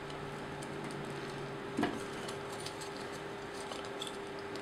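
Faint clicks and taps of a plastic transforming-robot figure being handled, its leg parts shifted and jointed, with one small knock about two seconds in, over a steady low hum.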